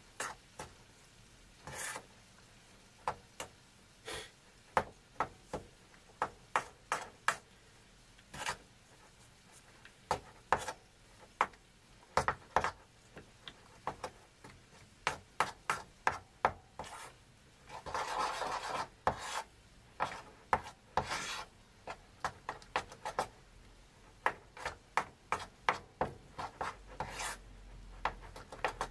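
A utensil scraping and tapping against a small bowl as a dip sauce is mixed by hand, in short irregular strokes with a longer stretch of scraping a little past the middle.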